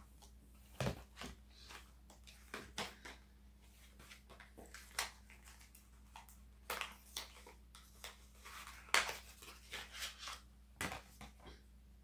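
Scattered short clicks, taps and rustles of small objects and packaging being handled by hand, with a sharper knock about 9 seconds in.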